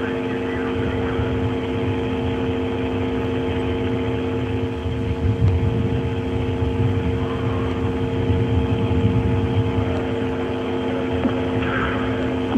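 A steady droning hum of several fixed tones over a low rumble, unchanging throughout.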